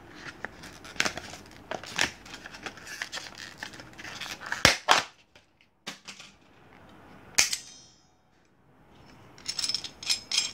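Irwin Vise-Grip locking pliers worked by hand: a string of metallic clicks and snaps as the handles and jaws are opened, clamped and released. The sharpest snap, about seven seconds in, rings briefly.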